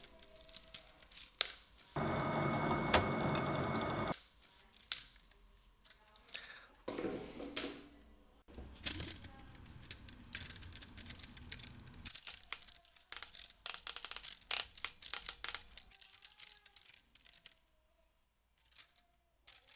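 Dubbed-in workshop sound effects standing in for missing live sound: a run of sharp clicks, snips and tearing-like rustles, with a steady machine-like noise with a thin whine lasting about two seconds, starting about two seconds in.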